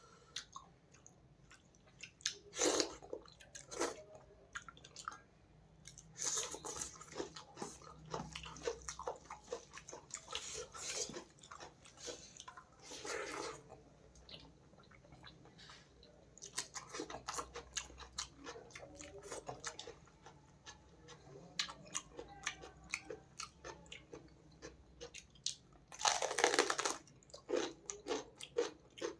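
Close-miked eating of Aar fish and rice: chewing and biting with wet smacking clicks in irregular bursts and pauses, the loudest burst near the end.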